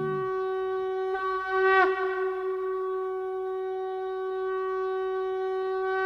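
Conch shell (shankha) blown in one long steady note, with a brief wavering break in the tone about two seconds in.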